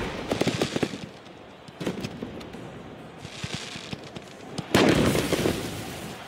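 Rapid crackling pops of stadium pyrotechnics firing, then a sudden loud burst just before five seconds in that fades away.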